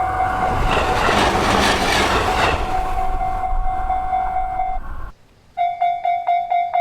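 A train horn holds one long steady note while an electric train passes with a loud rushing noise; the horn stops about five seconds in. After a brief break, a level crossing's electronic warning bell starts ringing in quick, even strikes, nearly four a second.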